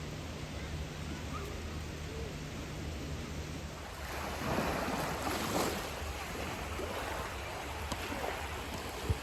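Small sea waves washing onto a beach, the surf swelling louder about halfway through, over a steady low rumble. A single sharp click near the end.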